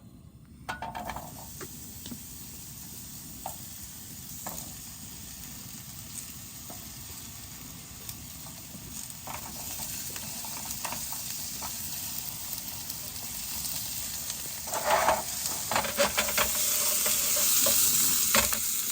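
Diced vegetables sizzling in a frying pan on a camp stove, with a utensil clicking against the pan now and then as they are stirred. The sizzle grows louder near the end, with a flurry of stirring clicks.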